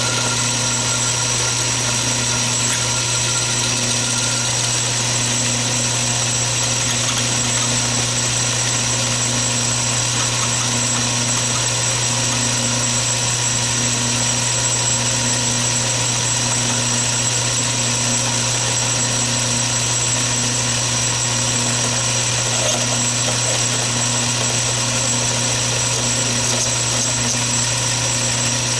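Atlas 618 bench lathe's motor and belt drive running steadily while a brass oil cup is parted off hex stock, with a faint throb repeating about once a second.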